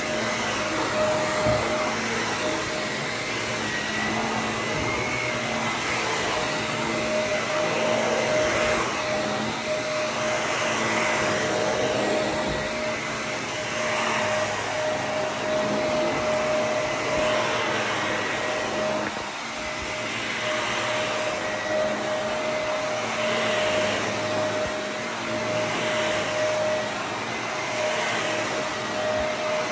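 Shark upright vacuum cleaner running on carpet, a steady motor hum with a thin whine. The sound swells and eases every two to three seconds as the vacuum is pushed back and forth.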